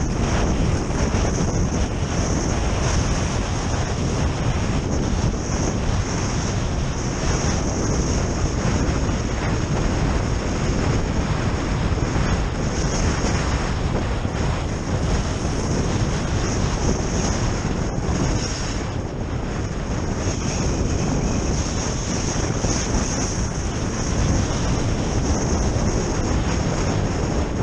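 Heavy wind buffeting the action camera's microphone at skiing speed, with a steady hiss of skis running over hard-packed snow.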